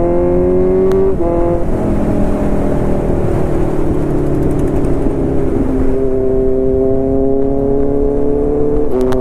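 Kawasaki Z900 inline-four engine running hard under acceleration, its pitch climbing slowly in each gear, with upshifts about a second in, near six seconds and near nine seconds where the pitch briefly drops.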